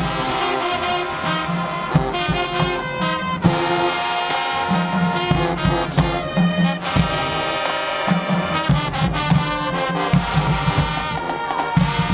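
Marching band playing: brass and saxophones carry the tune over a drumline, with short punchy low brass notes and sharp drum hits throughout.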